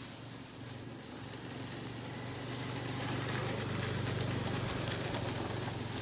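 A motor vehicle's engine humming low and steady, growing louder over the first half and easing off near the end, as of a vehicle passing by.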